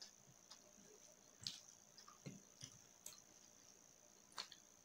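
Faint, scattered wet clicks and squishes of fingers mixing rice with chicken liver and gizzard curry, and of chewing.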